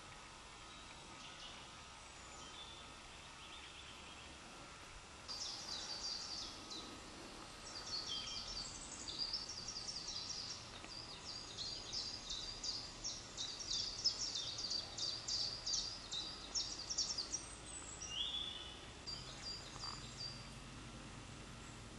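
Small songbirds singing: quick strings of high notes and trills that begin about five seconds in and run almost without a break for some twelve seconds, then thin out to a few calls near the end, over a faint outdoor background.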